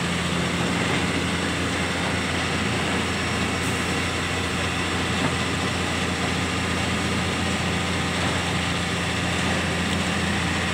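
Komatsu PC210 LC excavator's diesel engine running steadily at one even speed with no revving, during unloading from a lowbed trailer.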